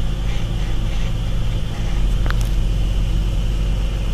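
Steady low rumble of engine and tyre noise inside a pickup truck's cab while cruising on a paved highway, with one short high click a little past two seconds in.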